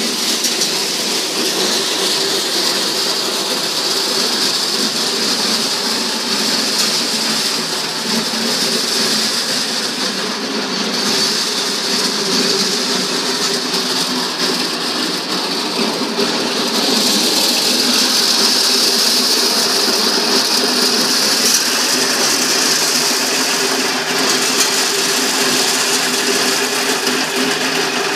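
Electric motor-driven corn sheller running: a steady mechanical noise with a low hum under it, getting a little louder about two-thirds of the way through.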